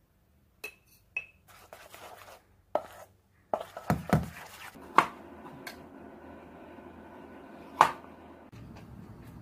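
Kitchen food-prep sounds in quick succession: two light ringing clinks of a glass jar, then a whisk working cream cheese in a stainless steel bowl, and a knife slicing strawberries on a cutting board. Sharp knocks come through, the loudest near the end.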